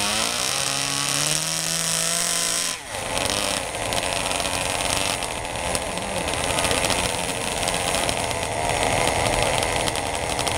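Small engines of a radio-controlled pulling tractor running at high revs, their pitch climbing over the first couple of seconds. Just under three seconds in the sound dips sharply, and the engines run on as a rougher, steady buzz.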